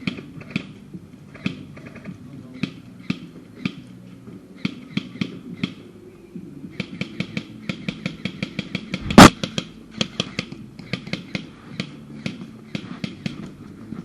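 Airsoft gunfire: sharp clicks, at first single shots about a second apart, then rapid bursts of about ten shots a second, with one much louder crack a little after nine seconds.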